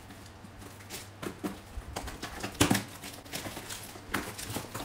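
Small cardboard box being opened by hand, its slit flaps pulled apart and handled, giving a string of short cardboard crackles and taps, the loudest a little past halfway.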